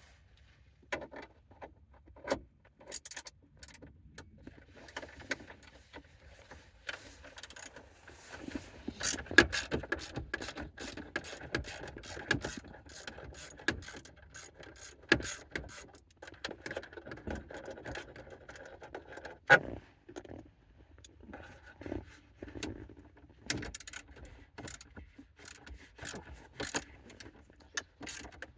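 Hand tools working on a car's steering column trim: many sharp clicks and scraping, busiest from about five to twenty seconds in, as the column covers are unscrewed and unbolted.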